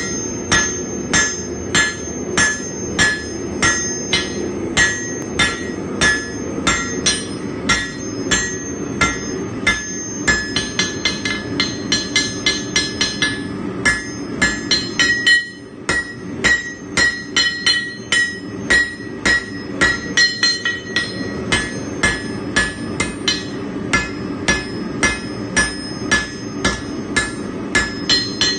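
Blacksmith's hand hammer striking red-hot steel on an anvil while forging a pair of tongs. The blows come in a steady rhythm of about two a second, and the anvil rings after each one. The blows quicken for a few seconds in the middle, break off briefly, then carry on.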